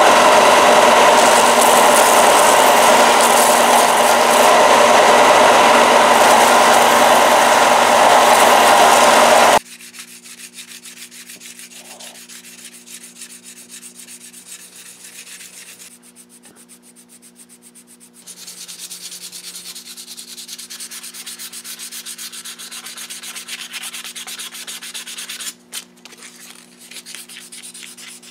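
Belt sander running loudly and steadily, cutting off abruptly about ten seconds in. After that, a steel knife blade is hand-sanded with sandpaper: quieter rubbing strokes back and forth.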